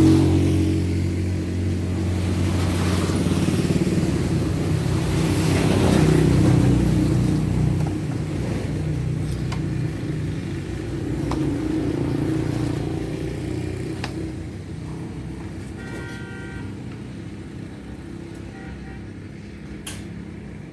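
Road traffic rumbling past, swelling and fading as vehicles go by, with a few sharp clicks and a brief tone in the second half.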